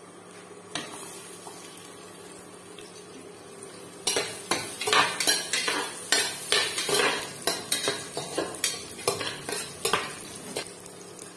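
Metal spoon stirring ingredients in oil in an aluminium pressure cooker, clinking and scraping against the pot a couple of times a second, starting about four seconds in.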